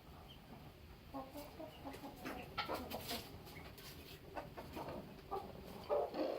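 Domestic chicken clucking in a string of short, soft calls that start about a second in, with the loudest call near the end.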